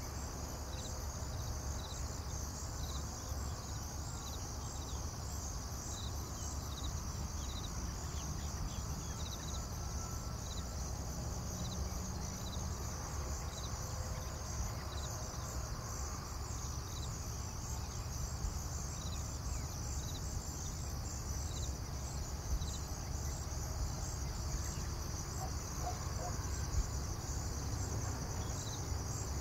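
Insects chirping steadily in a high pitch, with short chirps repeating about twice a second over a continuous drone, above a low steady hum.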